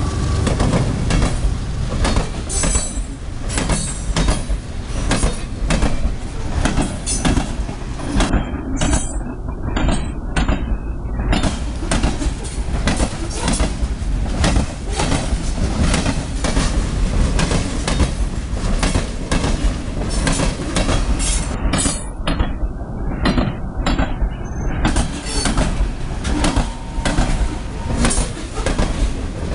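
Loaded freight train rolling past fast, its wheels banging over bad rail joints at the crossing in a rapid, uneven run of hard clanks over a steady rumble. The pounding is the sign of worn joints that let the rails move up and down under the wheels.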